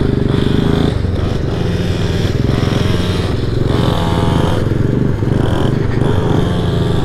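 Honda Ruckus scooter's engine running while riding a gravel road, its pitch wavering slightly as the throttle changes.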